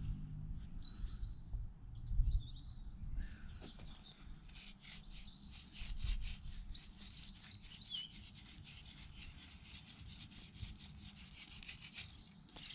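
Wood rubbing on wood as an elder spindle is spun between the palms into an ivy hearth board, burning in the set for a hand-drill fire, with many short strokes. Small birds chirp and twitter throughout.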